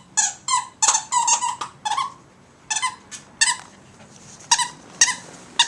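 A dog's squeaky toy squeaking as the dog bites it: a quick run of high squeaks, then squeaks spaced further apart.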